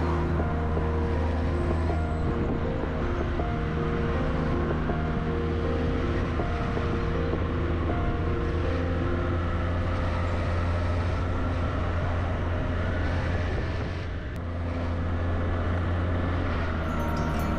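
Vehicle running steadily on the move, a constant low hum with road and wind noise, dipping briefly near the end.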